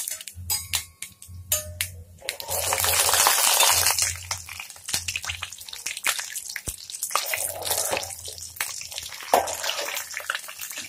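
Mustard seeds sizzling and crackling in hot oil in a steel pan as the tempering is fried, with many small pops over a steady hiss that is loudest about two to four seconds in. A steel ladle stirs the seeds.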